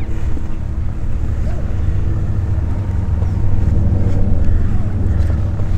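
Steady engine drone under a heavy low rumble of wind on the microphone.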